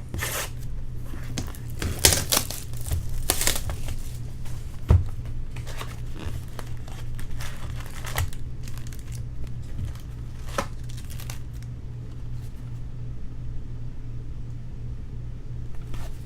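Baseball card pack wrappers being torn open and crumpled. Several loud rips come in the first four seconds and a sharp knock about five seconds in, then quieter rustling, over a steady low hum.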